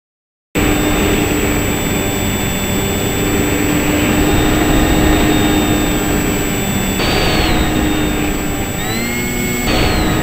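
Electric motor and propeller of a WingDragon RC plane whining in flight, heard close up through the plane's onboard camera over a steady rush of noise. It cuts in about half a second in, and the whine rises in pitch about seven seconds in and twice more near the end.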